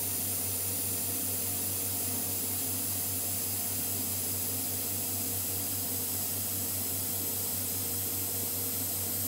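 Steady drone and hiss of a CNC router's vacuum suction hold-down pump running, with an even low hum under a high hiss.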